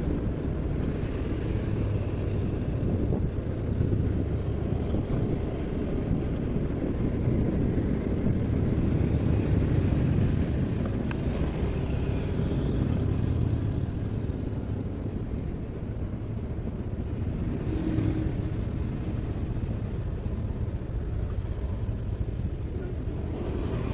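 Motor scooter being ridden: a steady low rumble of the engine, tyres and air rushing over the microphone, a little quieter in the second half as it slows.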